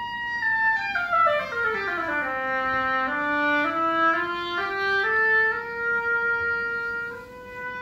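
Oboe playing solo: a held high note, then a quick run down into its low register, then a stepwise climb back up to a long held note in the middle register, with a new note starting near the end.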